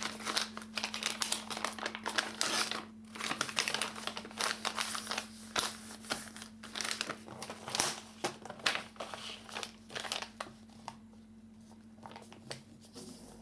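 Paper bags being handled and folded: crinkling and rustling of paper with small crackles, thinning out over the last couple of seconds.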